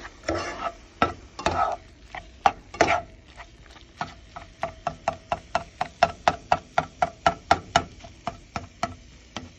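Spatula scraping and stirring scrambled eggs and salami in a frying pan. From about four seconds in, it knocks against the pan in a quick regular run, about four a second, chopping the eggs into small pieces.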